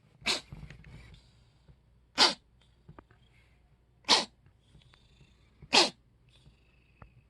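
A cat sneezing four times in a row: short, sharp sneezes about two seconds apart.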